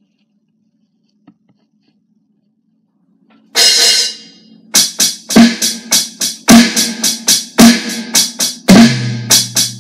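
Alesis electronic drum kit played through its sound module: a crash cymbal about three and a half seconds in, then a steady drum beat with a kick drum about once a second under quicker cymbal and drum hits.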